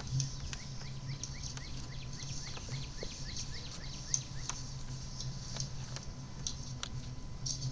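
Outdoor sound with a steady low hum, scattered light clicks and crackles, and a quick series of short rising chirps, about four a second, during the first three seconds.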